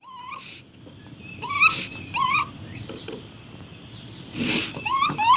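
Raccoon calling: short, high, wavering squeals, three in the first two and a half seconds and a quick run of them starting near the end. About four and a half seconds in there is a brief breathy hiss.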